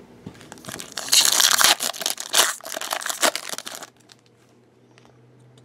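A foil trading card pack being torn open and its wrapper crinkled, a dense crackling run that is loudest about a second in and stops about four seconds in.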